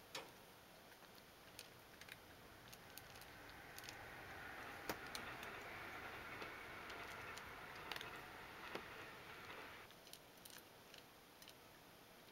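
A cat eating from a bowl: faint, sharp crunches of food come irregularly, with a soft hiss in the middle stretch.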